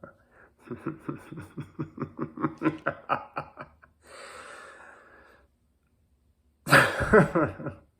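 Human laughter: a run of rhythmic 'ha-ha' pulses, several a second, then a breathy stretch. After a brief silence comes a short, louder burst of laughing near the end.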